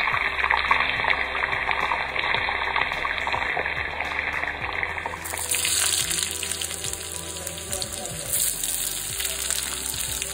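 Hot oil sizzling in an iron kadhai as cumin seeds, garlic and ginger fry, under background music. About five seconds in the sizzle changes to a higher, brighter hiss.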